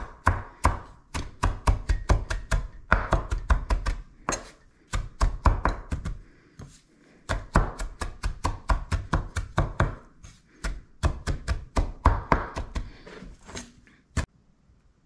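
Chef's knife rough-chopping Italian parsley on a wooden cutting board: quick runs of blade taps, about five a second, with short pauses between runs. Near the end the chopping thins out to a few scattered taps.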